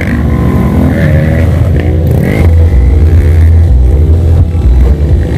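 Off-road trail motorcycle engines revving, their pitch rising and falling several times over a deep, steady low rumble.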